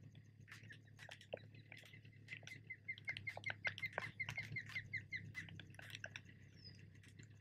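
Faint, scattered ticks of raindrops striking the camera housing and kayak in heavy rain. Through the middle, a bird calls a rapid, even string of short high chirps, about five a second, for around three seconds.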